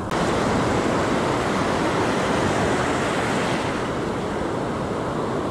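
Ocean surf: foaming whitewater washing around the shallows in a steady rush.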